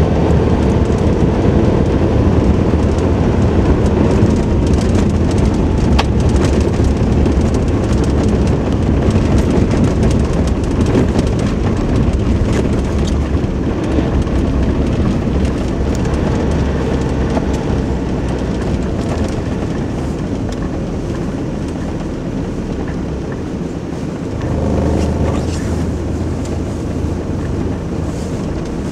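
Nissan Navara crew-cab pickup driving on a snow-covered road, heard from inside the cab: a steady engine drone with tyre and road rumble that eases off gradually. About 25 seconds in, the engine note briefly swells.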